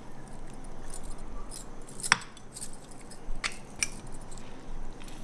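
A few light clinks of a spoon against a ceramic mixing bowl while spices are added, the sharpest about two seconds in.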